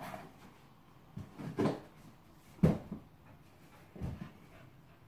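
Large cardboard box knocked and shoved about on the floor by a dog digging at it for a hidden treat: a few separate dull thuds and scuffs, the sharpest about two and a half seconds in.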